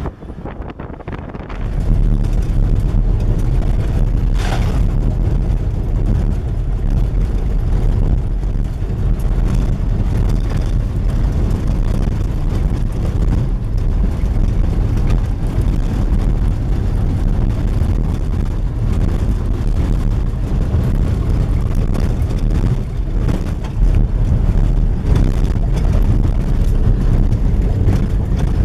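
A vehicle driving on a dirt road, heard from inside the cabin: a steady, loud low rumble of engine and tyres that starts about two seconds in.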